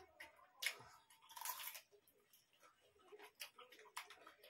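Faint eating sounds of rice and curry eaten by hand: chewing and mouth clicks with fingers mixing rice on steel plates, two short noisy bursts in the first two seconds and scattered small clicks after.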